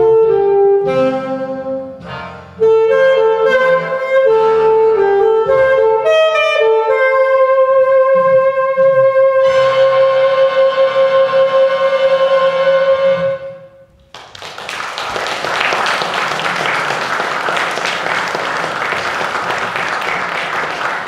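Alto saxophone playing the closing phrases of a jazz tune, ending on one long held note that stops about 14 seconds in. Audience applause follows.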